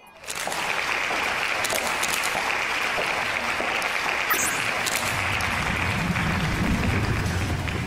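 Audience applause, starting suddenly and holding steady, with a deeper rumble building up in the second half.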